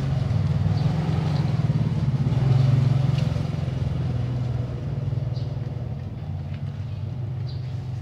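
A steady low engine hum, like a motor vehicle running, growing louder about two and a half seconds in and then slowly easing off.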